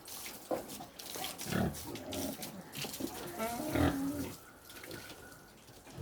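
Pigs grunting: a few short grunts, the loudest just before four seconds in, with scattered clicks and knocks between them.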